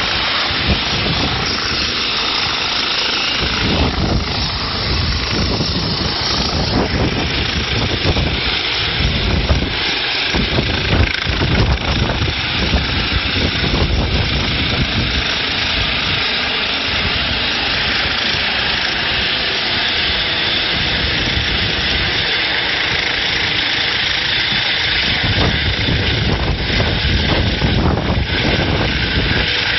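Eurocopter EC135 air-ambulance helicopter lifting off and flying away: a loud, steady rush of turbine and rotor noise, with uneven low buffeting surges throughout.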